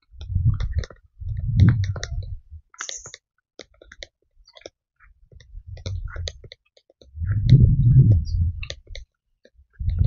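Camera and microphone handling noise while walking: scattered sharp clicks and four low, muffled rumbles of about a second each.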